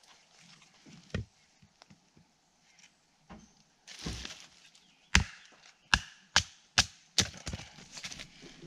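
A large knife chopping into fatwood (resin-rich pine lighter wood) in an old stump: a few scattered knocks, then a quick run of about six sharp chops, with wood splintering and crackling between them.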